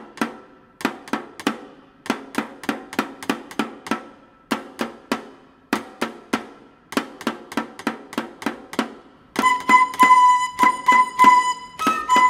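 A rhythmic pattern of dry, sharp strikes on a percussion instrument played with a stick, several a second. About nine seconds in, dizi bamboo flutes enter with a sustained melody over the beat.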